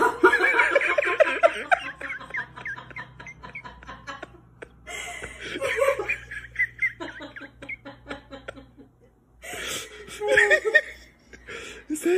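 People laughing and giggling in several bursts, with quieter gaps between.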